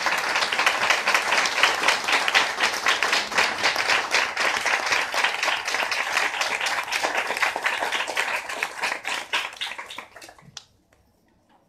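A small audience applauding, thinning out to a few last scattered claps about ten seconds in.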